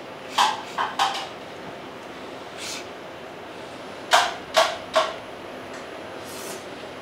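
Two groups of three sharp knocks a few seconds apart: a hard kitchen utensil striking cookware, over a steady background hiss.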